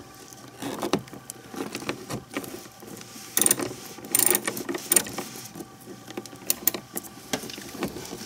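Socket wrench with a 13 mm socket loosening the ignition coil's mounting bolt: irregular metal clicks and small rattles, in clusters about three and a half and four and a half seconds in.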